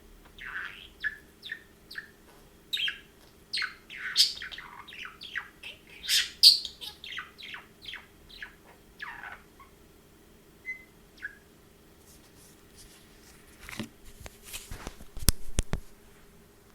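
Budgerigars chirping in quick, rapid runs of short notes, which thin out to a few single chirps after about nine seconds. A series of sharp clicks or taps comes near the end, over a faint steady hum.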